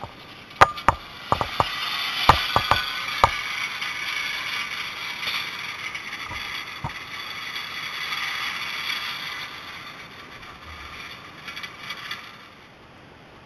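Cableway carriage running along its cable: a quick run of sharp metallic clicks in the first three seconds, then a steady rushing whir that drops away near the end.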